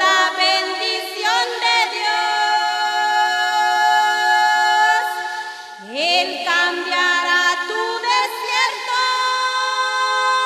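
Two women singing a Spanish-language evangelical hymn in unison without accompaniment, drawing out long held notes and sliding up in pitch into each new phrase.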